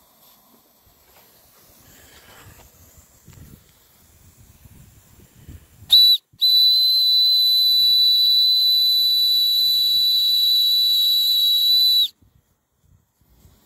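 Brass steam whistle on a Wilesco D21 model steam engine, blown by hand from its working boiler. A short toot about six seconds in is followed by one long, steady, high whistle with a hiss of steam, which cuts off suddenly after about six seconds.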